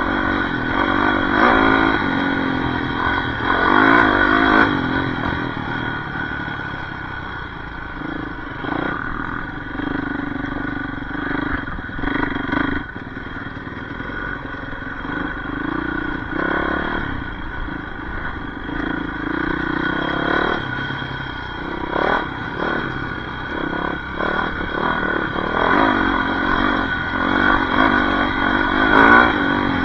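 Yamaha YZ450F single-cylinder four-stroke dirt bike engine being ridden off-road, revving up and down again and again as the throttle is worked, with scattered knocks and clatter from the bike over rough ground.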